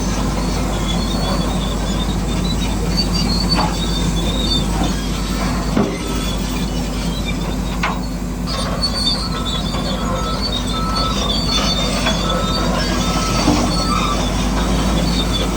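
Steady mechanical running noise from a model bulldozer working rock, with high metallic squeals coming and going and a few short clicks, typical of steel tracks grinding and squeaking.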